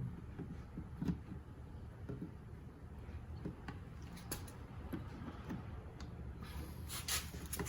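Faint, scattered clicks and taps of plastic mirror-housing clips and trim being pried and worked loose by hand, with a few sharper clicks near the end, over a steady low hum.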